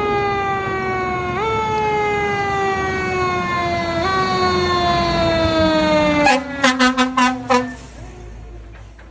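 Fire ladder truck's siren winding up quickly and then sliding slowly down in pitch, three times over. Near the end it gives a quick run of about six short air-horn blasts, and then there is the low rumble of the truck passing.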